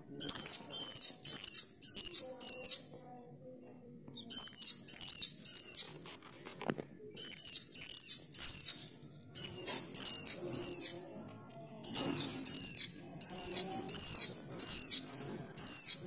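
A bird calling in sharp, high, downward-slurred notes, about two a second, in runs of three to seven with short pauses between runs.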